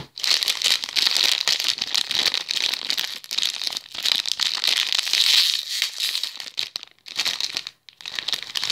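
Packaging of a blind-box vinyl figure being torn and crinkled open by hand: continuous crackling and rustling with little tearing pulls, pausing briefly a couple of times near the end.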